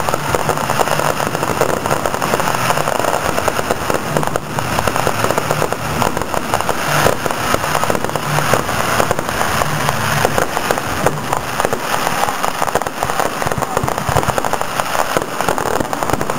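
Fireworks going off many at once, a dense, unbroken crackling and popping of firecrackers and shells.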